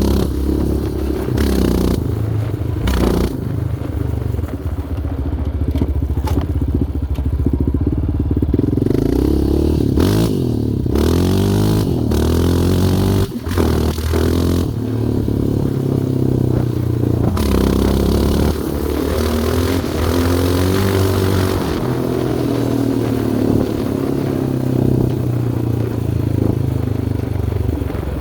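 Yamaha Raptor 700R sport quad's single-cylinder four-stroke engine being ridden, its pitch rising and falling repeatedly as the throttle opens and closes, with occasional clattering knocks.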